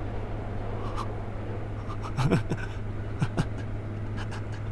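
Subway car running noise, a steady low hum and rumble, with a man's short chuckle about two seconds in and again near three and a half seconds, plus a few light clicks.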